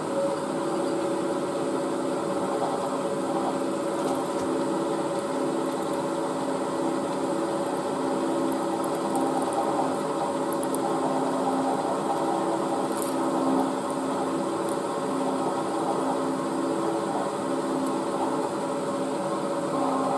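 Drilling machine spindle running steadily with a small drill bit fed down through the cast alloy oil pump body and drawn back out, opening the oil feed hole.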